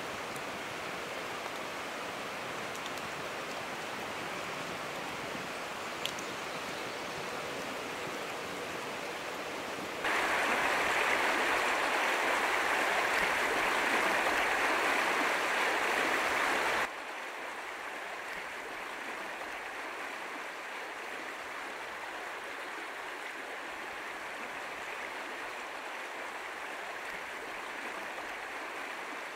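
A shallow river running over a gravel bed, a steady rushing of water that is much louder for about seven seconds in the middle. Before and after that it is a quieter steady hiss, with one faint click about six seconds in.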